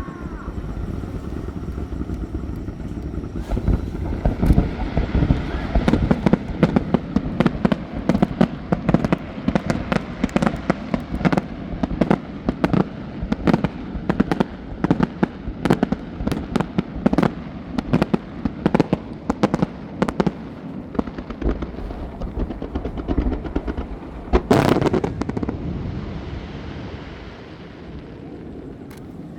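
Fireworks display over a bay, aerial shells bursting in rapid, dense succession, the booms reverberating off the surrounding sea and hills. A single long, loud burst comes about 24 seconds in, after which the bangs thin out and the rumble fades.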